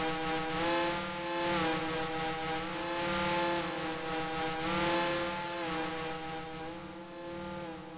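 Modular synthesizer patch sequenced by a Behringer sequencer and run through a BLM CMOS FX Processor Mk2: a buzzy drone of several stacked tones that steps to new pitches every second or two, with hissy swells. It grows quieter over the last couple of seconds.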